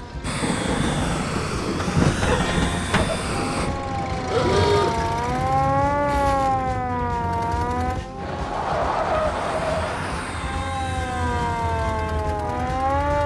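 A police car siren wailing, its pitch sweeping slowly up and down, twice covered by stretches of louder rushing noise.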